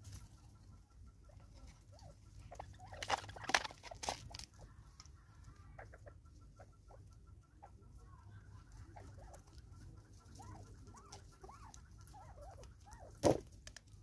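Spurfowl (francolins) feeding, giving soft short clucking notes, most of them in the second half. A cluster of sharp knocks comes about three to four seconds in, and one loud knock comes near the end.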